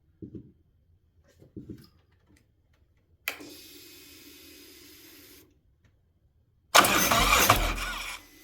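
2018 Harley-Davidson Street Glide Special being turned over on the electric starter with the primary cover off, testing a newly replaced compensator. A few light clicks and a steady hum of about two seconds come first, then the loud cranking near the end. The engine is only cranked, not fired up, and it sounds right: the failed compensator was the problem.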